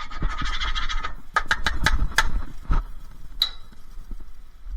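Scrap metal being handled and clattering: a quick rattle for about a second, then a string of sharp clinks and knocks, one of them ringing briefly.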